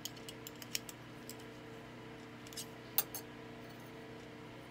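Light metallic clicks and taps as pliers work a fork curled into a snail and the piece is set on a steel anvil block. There are several scattered ticks, with the loudest tap about three seconds in, over a steady low hum.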